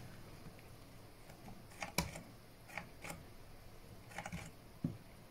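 A handful of faint, sparse clicks from fingers working a suitcase's three-dial combination lock: the release button pressed and the lock's plastic parts snapping.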